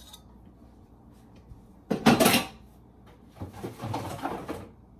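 Kitchen handling clatter: a loud clatter about two seconds in, then a longer stretch of knocking and rummaging about a second later.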